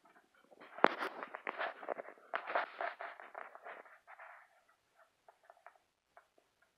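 Week-old puppies squeaking amid rustling and shuffling in the crate bedding as the mother dog moves over them, busiest in the first four seconds, with one sharp click just before the one-second mark.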